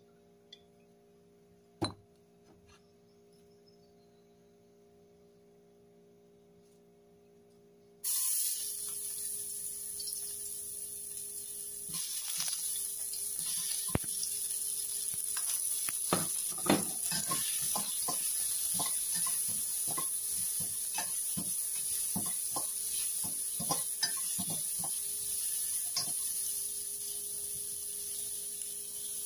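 Chopped onion, garlic and ginger hitting hot oil in a stainless steel wok, starting a loud, steady sizzle about eight seconds in; at first there is only a faint steady hum. As the aromatics fry, repeated clinks and knocks on the steel pan sound over the sizzle.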